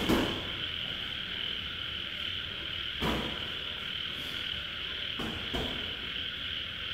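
Steady chirring of night insects such as crickets. A few dull thumps of gloved punches land over it: the loudest right at the start, another about three seconds in, and two more close together a little after five seconds.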